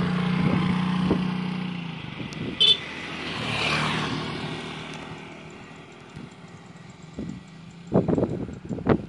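A motor vehicle engine runs with a steady hum, then a vehicle passes by, swelling and fading, with a short horn toot about two and a half seconds in. Near the end, gusts of wind buffet the microphone.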